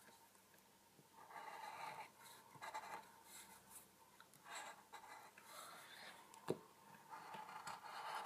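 Felt-tip highlighter pen drawing on paper: faint scratchy strokes, several short runs of about half a second to a second each. One sharp click about six and a half seconds in.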